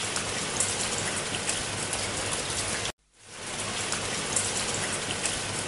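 Rain sound effect: a steady hiss of rain with scattered drop ticks. It cuts out suddenly about three seconds in and fades back up as the loop restarts.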